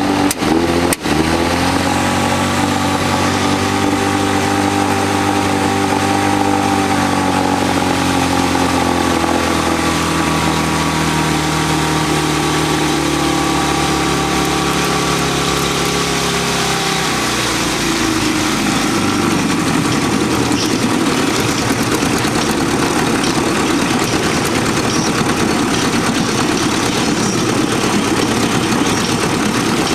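Privet-22 engine running. About a second in it stumbles, its speed dipping sharply and picking back up. It then runs steadily until about 17 seconds in, where the even note breaks up into a rougher sound. This is the engine's 'sneezing', a sign of an intermittent misfire.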